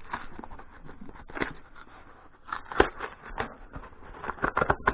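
Corrugated cardboard box being torn open by hand: the glued flap ripped from the box, tearing the paper facing off the corrugated layer, in irregular crackles and rips with one sharper snap nearly three seconds in and a quicker run of tearing near the end.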